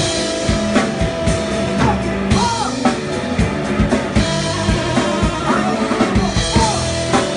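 A live band playing: a drum kit keeps a steady beat under saxophone and keyboard, with a held note and a few bending melodic lines.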